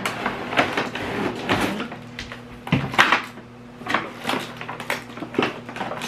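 A cardboard box and its plastic wrapping being opened and handled: repeated scraping, rustling and light knocks, with the loudest knock about three seconds in.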